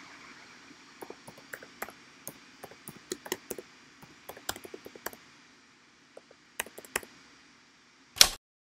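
Computer keyboard typing: irregular key clicks over a faint hiss, then one much louder keystroke near the end.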